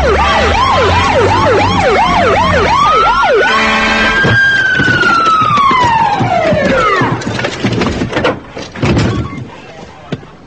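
Police car siren sounding loudly in a fast up-and-down yelp, about two sweeps a second, then switching to one long wail that rises and slowly falls away, dying out about seven seconds in. A few knocks follow near the end.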